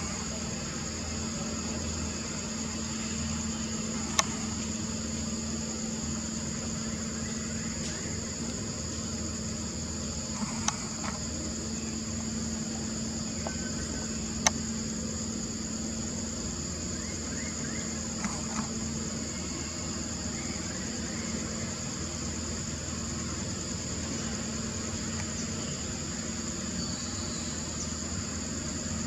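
Steady drone of forest insects, with a low hum beneath and a few single sharp clicks, the loudest about halfway through.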